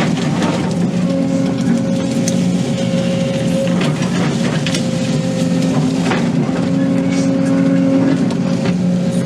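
Excavator diesel engine and hydraulics running steadily under load as it digs, with a steady hum that shifts in pitch and strength every second or two and a few sharp knocks or cracks scattered through.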